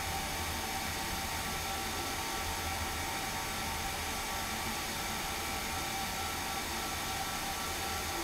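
Handheld hair dryer blowing steadily, held close to the microphone: an even rush of air with a constant motor whine.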